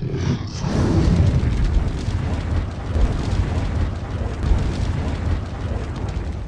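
Cinematic boom-and-rumble sound effect for a logo reveal: a heavy, noisy rumble that swells about a second in, holds, and fades out near the end.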